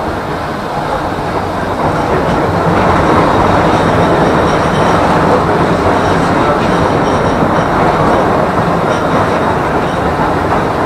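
Tram running along its track between stops: a steady rolling noise of wheels on rails, getting louder about two seconds in and then holding.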